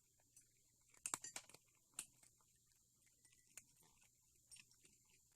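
Near silence, broken by a few faint clicks and crunches of a cat eating its food, clustered about a second in.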